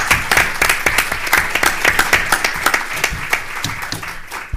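Audience and panel applauding in a hall, many hands clapping steadily, dying away near the end.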